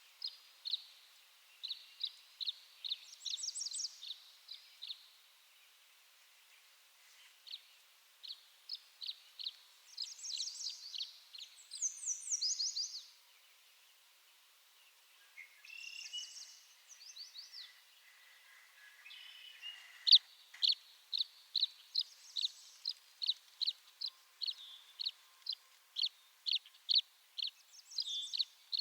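Tree swallows calling: short, clear chirps repeated in series, broken by several quick flurries of higher, rapid twittering notes. In the later part the chirps run on evenly at about two a second.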